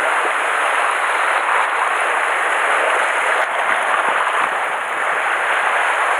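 Sea surf washing and breaking against a rocky shore, a steady rush of foaming water.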